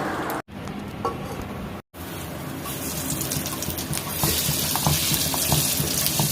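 Oil sizzling and frying in a pan, a steady hiss with small crackles that grows louder and brighter from about four seconds in. The sound cuts out completely twice within the first two seconds.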